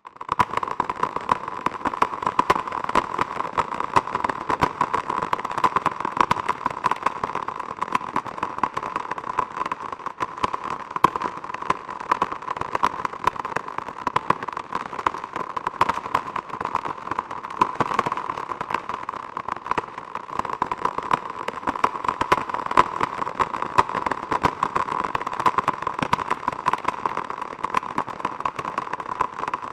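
Geiger counter clicking rapidly and irregularly, a dense steady crackle of clicks. The high count rate signals a strong radiation field.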